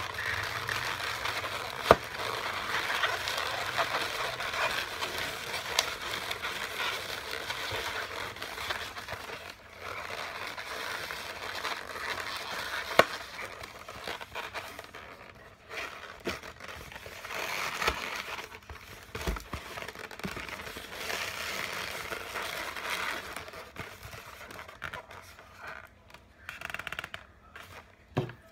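Latex modelling balloons squeaking and rubbing against each other and against hands as they are twisted and shaped into a balloon figure, with two sharp clicks, about two seconds in and about thirteen seconds in.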